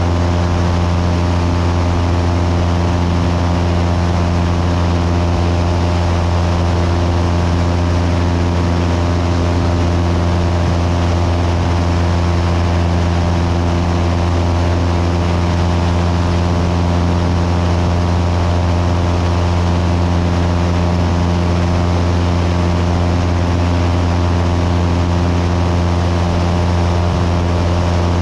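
Cessna 172's piston engine and propeller running steadily in flight: a constant low drone with even overtones that holds the same pitch and loudness throughout.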